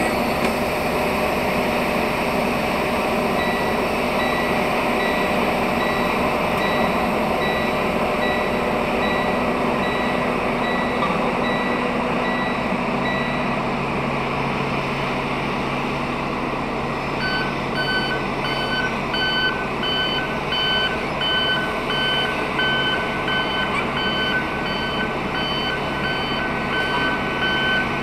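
Two electronic warning alarms from moving rail-yard equipment beep at a steady, even pace, one for about ten seconds early on, then a lower-pitched, louder one starting past the middle. Beneath them runs a semi truck's diesel engine.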